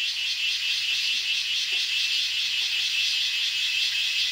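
Steady high-pitched insect chorus: a fast, pulsing trill that holds on without a break.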